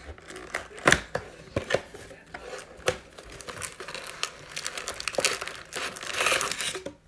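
Wrapping being torn off a Panini Mosaic Fast Break trading card box, with a sharp crackle about a second in. The cardboard lid is then flipped open, and foil card packs crinkle as they are pulled out near the end.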